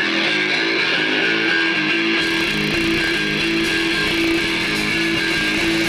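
Music: a guitar-led track with strummed electric guitar and bass, playing at a steady level.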